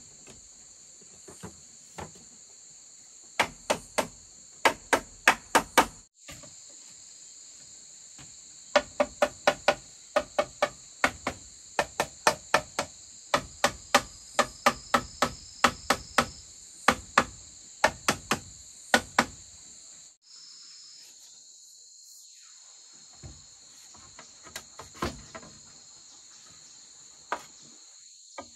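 Runs of sharp tool blows on bamboo, about three a second, over a steady high drone of crickets. The blows stop near the end, leaving the insects and a few scattered knocks.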